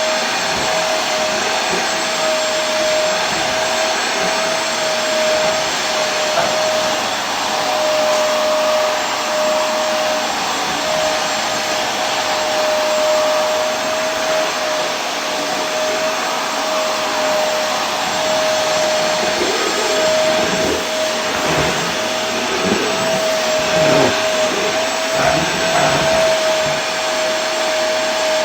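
Vacuum cleaner running steadily: an even rushing of air with a steady motor whine.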